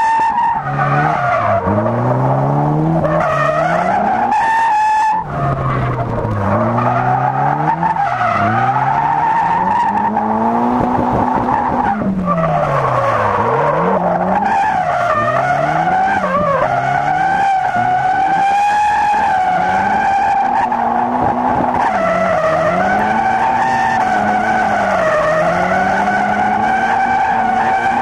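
Nissan S13 Silvia's turbocharged SR20DET four-cylinder, fitted with a TD06-20G turbo, revving up and down over and over while its tyres squeal almost without a break through a drift. The squeal and the engine dip briefly about five seconds in.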